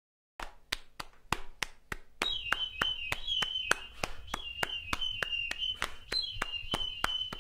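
A run of sharp, evenly spaced clicks, about three a second, starting abruptly; about two seconds in a thin high steady tone joins them.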